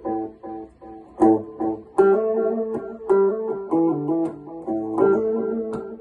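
Electric guitar with a built-in PT2399 delay circuit, played in picked single notes and short melodic phrases.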